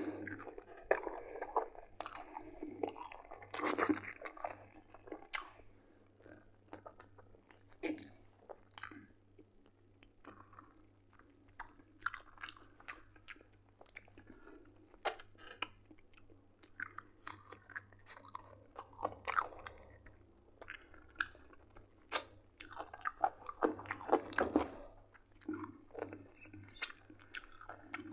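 Close-up eating sounds of a man chewing and biting roast chicken drumstick meat off the bone, in irregular bursts of wet chewing and sharp clicks.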